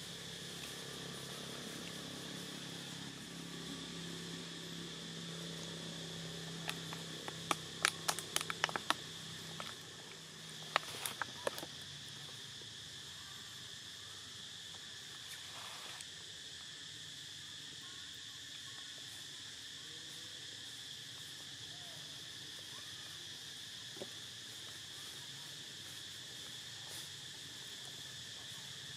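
Steady, high-pitched chorus of forest insects. A low hum runs under it for the first ten seconds or so, and a few quick runs of sharp clicks come about eight and eleven seconds in.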